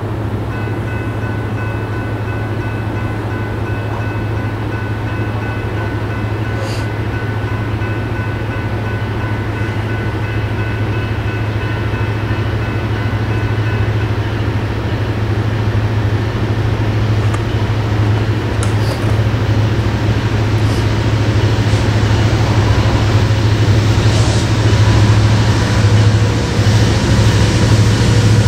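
Norfolk Southern diesel locomotive approaching, its low engine rumble growing steadily louder as the train draws near.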